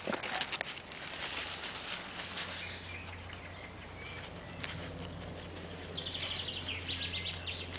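Leaves and stems rustling and crackling as plants are pulled and handled in a raised bed, loudest in the first few seconds. In the second half a songbird sings a run of short, high, repeated notes stepping down in pitch.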